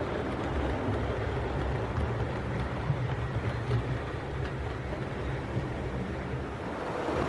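OO gauge model train of Pullman coaches running along the track with a steady low rumble of wheels on rail.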